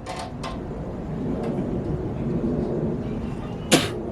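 A flathead screwdriver prying a metal door-jamb trim strip off its retaining tabs: a few light clicks, then one sharp snap near the end as the trim comes free. A low steady rumble runs underneath.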